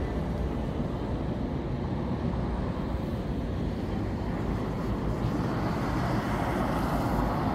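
Steady road traffic noise from cars passing on a city street, with a low rumble of wind on the microphone.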